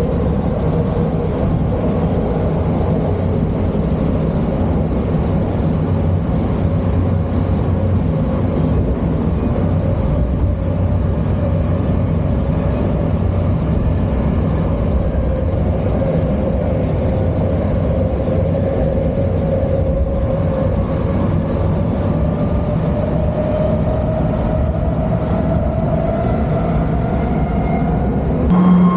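BART train running: a steady rumble with a whine that rises slowly in pitch over the last few seconds.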